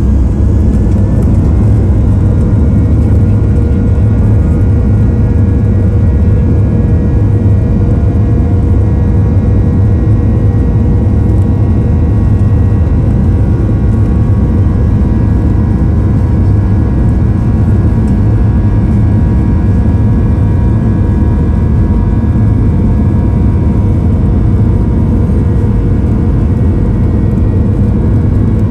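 Boeing 737-800's CFM56-7B turbofan engines heard from inside the cabin at low taxi power: a loud, steady low rumble with a thin whine running through it, the jet rolling slowly over concrete.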